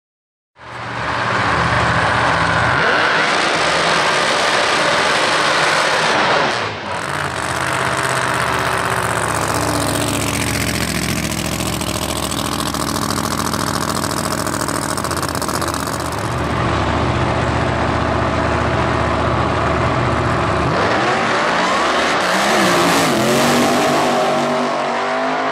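Supercharged engine of a Holden Commodore ute drag car, cutting in suddenly about half a second in and running loud and hard at high revs, with its rear tyres spinning in a burnout. Near the end the revs rise and fall as the ute pulls away down the drag strip.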